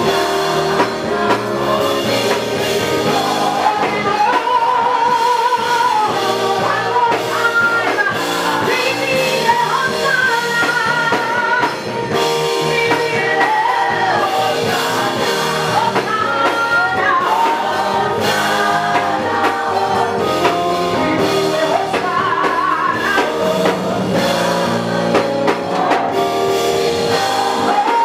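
Gospel vocal group singing live in harmony with band accompaniment, several voices holding notes with vibrato over drums.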